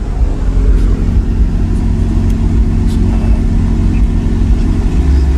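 Three Sundown Audio ZV5 15-inch subwoofers in a sixth-order bandpass wall playing music bass at high volume, heard inside the vehicle's cabin. The deep bass grows stronger near the end.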